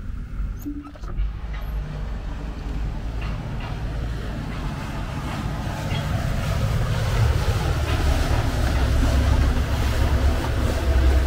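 Motorboat engines running on the canal below: a steady low drone that grows louder over the last few seconds as a water taxi passes, with the rush of its wake. There is a brief knock about a second in.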